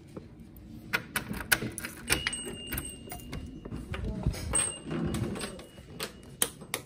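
Rapid clicks and rattles of a door handle and lock being worked to open the door, with two faint high tones about a second long in the middle, then sharp clicks of wall light switches being pressed near the end.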